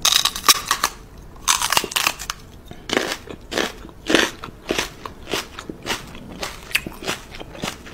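Crisp crunching like chewing: a string of sharp crunches at uneven intervals, about two a second.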